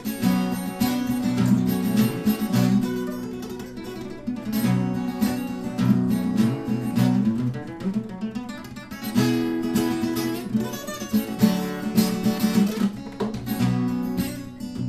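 Acoustic guitar strummed in quick, percussive chord strokes: an instrumental break with no singing.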